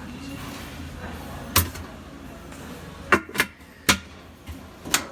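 Five short, sharp knocks, two of them close together about three seconds in, over a steady background hum.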